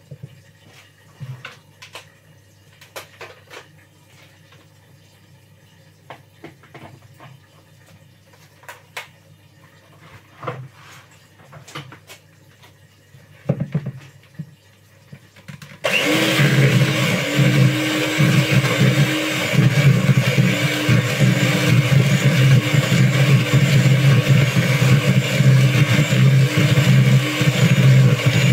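Light scattered clicks and knocks of handling, then, about halfway through, an electric hand mixer switches on suddenly and runs steadily with a loud motor hum, its beaters creaming butter, sugar and eggs in a plastic bowl.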